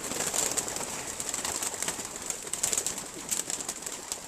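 A flock of young racing pigeons cooing and stirring in their loft, with many irregular sharp clatters of wings and feet.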